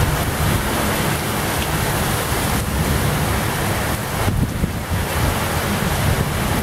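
Storm wind gusting hard and buffeting the microphone with a heavy low rumble, over the steady hiss of wind-driven rain. The gusts ease briefly twice.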